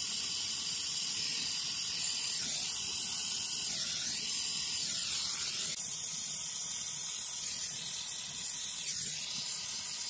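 Handheld gas torch flame hissing steadily while brazing a refrigerator compressor's pipe joints with brass rod and borax flux.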